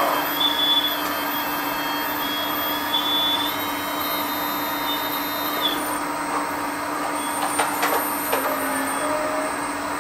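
Hydraulic system of a LESU RC Hidromek HMK 490 excavator running: a steady hum with a whine that shifts in pitch as the boom and grapple move, stopping about six seconds in. A few sharp clicks follow as the scrap grapple opens and lets a rock go into the truck bed.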